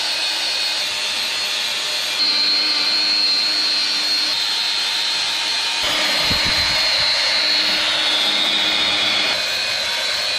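Power tool spinning a polishing pad against the steel front steering knuckle, a steady high whine with the rasp of the pad on the metal as it cleans off surface rust. It gets louder about two seconds in.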